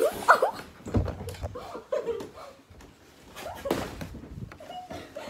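Soft thuds of stuffed animals and pillows thrown across a small room and landing, about one second in and again near four seconds in, with short wordless shouts from the boys.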